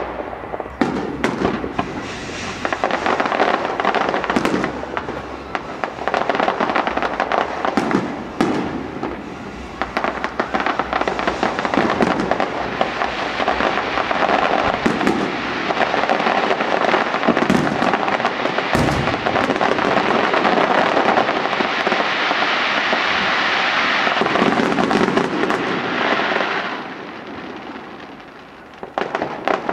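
Fireworks display: a dense run of bangs and crackling that builds to a continuous crackling barrage, dies down about three-quarters of the way through, then picks up again with a few more bangs near the end.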